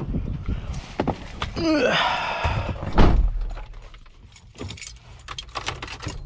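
Keys jangling among clicks and knocks of gear being handled, with a short falling squeak about two seconds in and a heavy thud about three seconds in.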